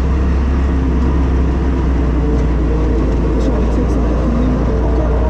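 Polaris RZR Turbo S side-by-side's turbocharged twin-cylinder engine running steadily under load as it drives over sand, with a heavy low drone and wind and drivetrain noise.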